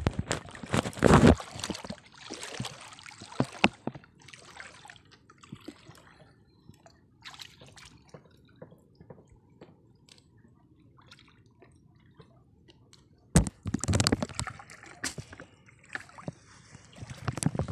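Water sloshing and dripping as fish are worked out of a wet gill net into a plastic bucket, with scattered small knocks and louder splashy bursts at the start and again about three-quarters of the way in.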